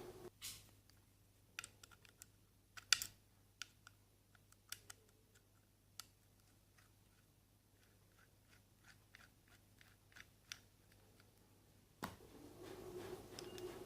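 Scattered light clicks and taps of metal door-lock hardware being handled, the loudest about three seconds in. After a click near the end, a steady hum starts.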